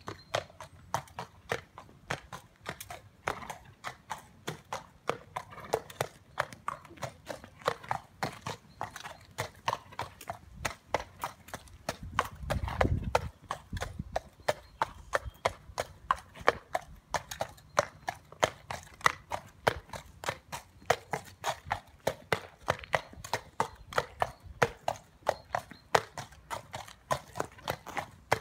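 Horse's hooves clopping on wet concrete at a walk, a steady rhythm of sharp clops, about three a second. A brief low rumble about halfway through.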